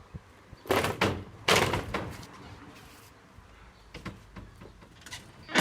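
A few sharp clunks and knocks: two close together under a second in, a louder one about a second and a half in that trails off, then fainter clicks near the end.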